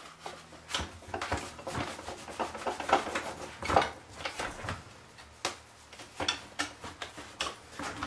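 Wet paper towel scrubbing the plastic detergent drawer of an Electrolux front-loading washer: irregular rubbing and scraping with light knocks of the plastic, starting about a second in.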